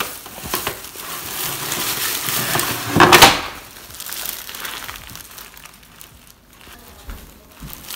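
Clear plastic bag crinkling and rustling around a small artificial Christmas tree as it is handled, loudest in a short burst about three seconds in.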